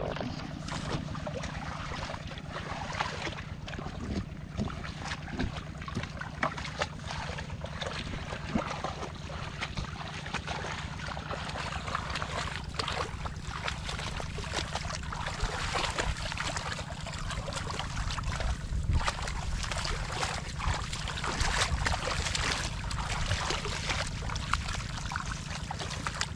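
Hands splashing and sloshing in shallow muddy water, with many irregular small splashes and squelches, over a steady low hum.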